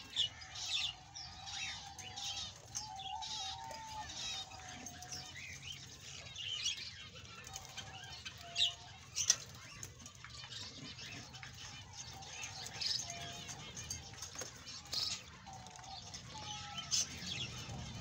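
Budgerigars chattering: quick, busy chirps and trills, with a lower wavering warble underneath.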